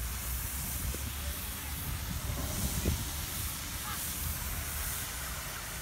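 Steady hiss of a pond fountain's water jet spraying and falling back, with a low rumble underneath.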